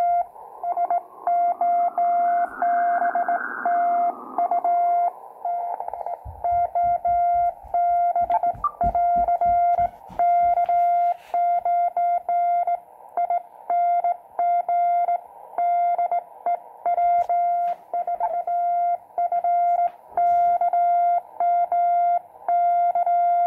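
Morse code (CW) on the 80-metre band, received by an Elecraft KX2 transceiver and played through its case speakers as a keyed tone near 700 Hz over narrow-filtered band hiss. The hiss swells wider in the first few seconds, and static crackles come in about a quarter of the way through.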